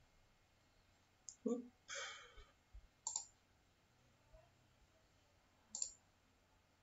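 Computer mouse clicking a few times, a couple of seconds apart, over quiet room tone, with a short soft noise about two seconds in.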